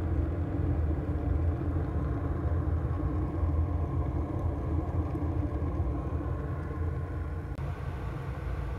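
Coal boiler's retort burner running, eco-pea coal burning in a fan-blown flame: a steady low rumble with a brief dip in level about three-quarters through.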